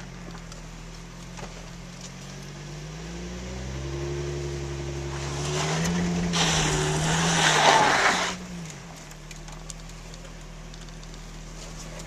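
Infiniti FX35's V6 engine pulling at low speed on a rough dirt track. It revs up with a rising pitch from about three seconds in and eases back down near eight seconds. During the peak, from about six to eight seconds, there is a loud rushing noise.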